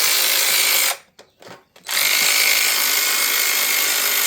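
Cordless power tool motor running at full speed with a steady whine in two runs: about a second at the start, then, after a short pause, again from about two seconds in.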